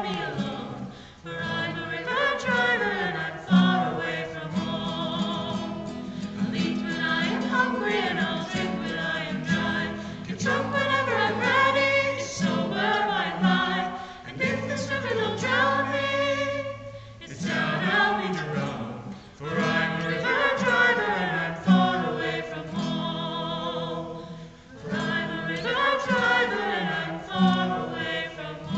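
A mixed group of men and women singing a folk song together, accompanied by an acoustic guitar, in sung phrases with short breaks between them.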